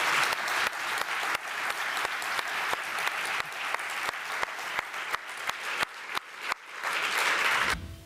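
Audience applauding, a dense clatter of many hands clapping that cuts off abruptly near the end.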